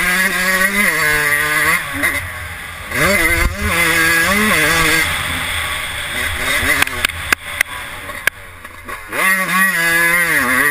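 Yamaha YZ125 dirt bike's single-cylinder two-stroke engine revving hard under way, its pitch climbing and falling as the throttle is rolled on and off. It drops off briefly about two seconds in and again around eight seconds in, then climbs again.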